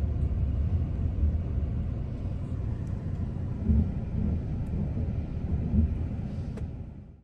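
Low, steady rumble inside a car's cabin, fading out near the end.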